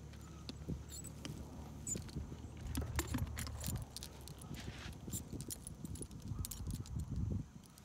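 Metal bit and fittings of a leather show bridle jingling and clinking as the bridle is taken off a horse's head and carried. Many small sharp clinks over a low rumble.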